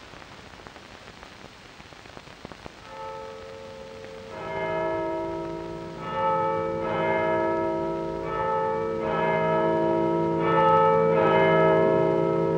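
Church bells ringing, a new stroke about every second over a held low hum, coming in faintly and growing louder from about four seconds in, heard over the old film soundtrack's hiss.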